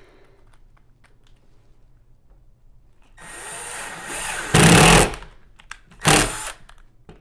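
A power drill running into the wall for about two seconds, starting about three seconds in and loudest at the end of the run, then a short second burst about six seconds in. It is driving into a wooden stud behind the drywall.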